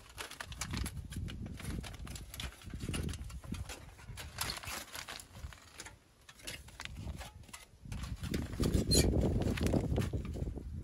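Aluminium foil crinkling as it is unfolded and smoothed flat, mixed with dry leaves and small stones crunching underfoot. A louder low rumble comes in over the last few seconds.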